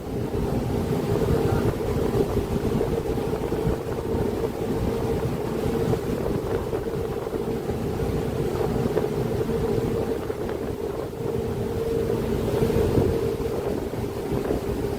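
Fast passenger ferry under way: its engines give a steady drone with a held hum, mixed with wind buffeting the microphone and rushing water.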